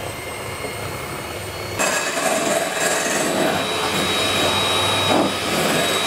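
Electric hand mixer running steadily, its beaters whisking egg whites in a glass bowl toward firm peaks, with a faint high whine. It gets louder about two seconds in.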